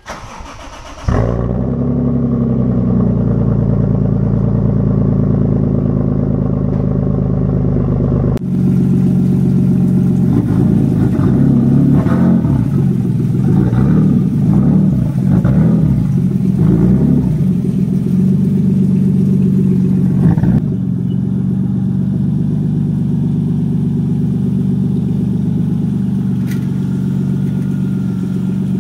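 Toyota 2JZ-GTE VVT-i twin-turbo inline-six (Aristo swap) in a Lexus IS300, heard close to the exhaust: it cranks and catches about a second in, then idles steadily. After a cut it is revved up and down several times, then idles steadily again after another cut.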